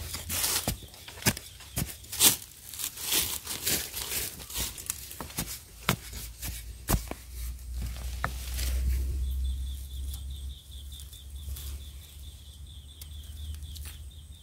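A metal digging blade scrapes and chops into dry, crumbly soil, loosening the earth around a cluster of wild yam tubers, with loose dirt and dry leaves rustling. The sharp strokes come thick for the first eight seconds or so, then give way to softer rustling.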